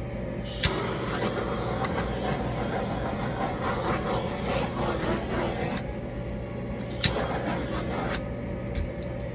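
Hand tool scraping and rubbing across a wet acrylic-painted canvas: a sharp click about half a second in, a long stretch of scraping, then a second click and a shorter scrape near the end.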